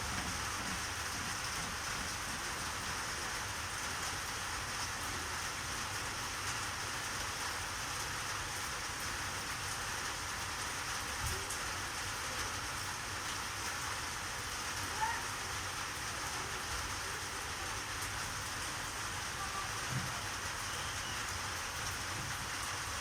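A steady, even hiss like rain falling, with a few faint soft knocks.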